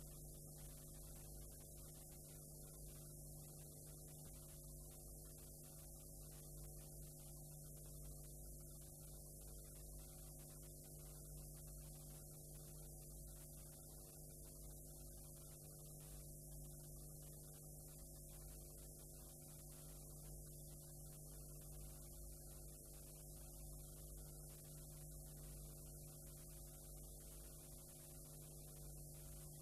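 Near silence on a blank stretch of videotape: a faint steady electrical mains hum with several overtones, one of them pulsing about once a second, over a steady high tape hiss.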